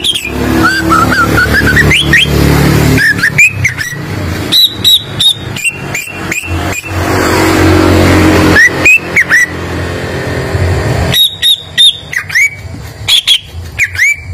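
Greater green leafbird (cucak ijo) singing: bursts of short, sharp whistled notes and upward-sweeping chirps mixed with loud clicks. A steady low rumble runs underneath and fades out for the last few seconds.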